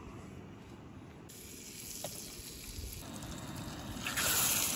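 A Jetboil camping stove's burner hissing under a pan of melted butter; about four seconds in, a piece of rainbow trout is laid into the hot butter and a louder sizzle starts.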